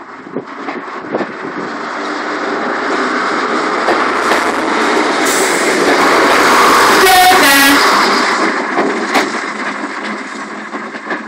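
First-generation diesel multiple unit departing and passing close by. Its diesel engines and running gear grow to their loudest about six to seven seconds in as the coaches go by, then fade as it pulls away. There are occasional sharp clicks and a brief high, horn-like tone near the loudest point.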